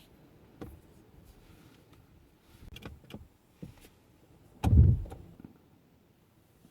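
A few small knocks and clicks, then one loud, short low thump about five seconds in.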